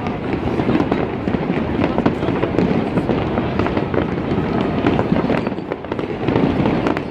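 Aerial fireworks display going off in quick succession: a dense, continuous run of bangs and crackles over a rumble.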